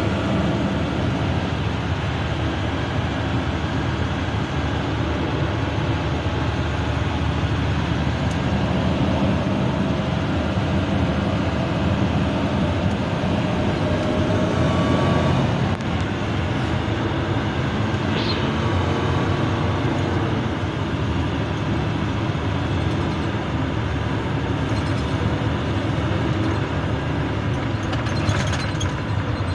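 Vacuum truck's engine running steadily with a low cab rumble as the truck drives slowly over a dirt track, heard from inside the cab.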